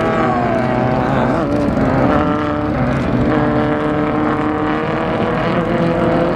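Off-road race car's engine running hard under load, its revs dipping and climbing again about a second in, then holding steady.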